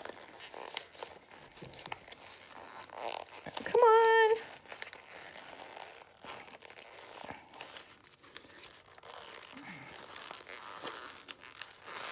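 Stiff vinyl of a zip bag crumpling and crinkling under the hands as it is forced right side out, with many small clicks and rustles. About four seconds in there is one short, high-pitched strained hum of effort, the loudest sound.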